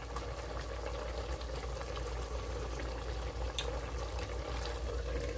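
Chicken pieces simmering in a seasoned sauce in a pan, a steady bubbling with fine crackle and a couple of faint clicks.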